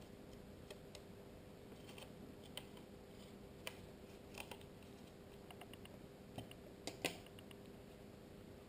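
Faint, irregular clicks and taps of small IP camera parts being handled and fitted together, the loudest pair about seven seconds in.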